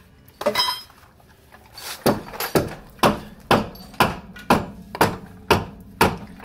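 Regular metallic knocks, about two a second, as the rear axle is being raised and worked into line with its body mount, after a single ringing metal clink about half a second in.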